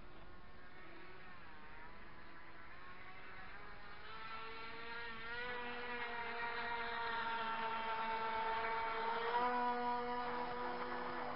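Radio-controlled model speedboat's motor whining as the boat speeds across the pond, growing louder from about four seconds in and loudest near nine seconds, its pitch shifting as it goes.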